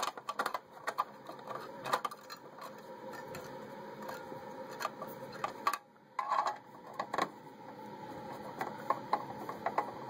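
Screwdriver tightening the heatsink screws of a Dell OptiPlex GX755 computer: a run of small, irregular clicks and scrapes of metal on metal as the screws are turned down, over a faint steady hum.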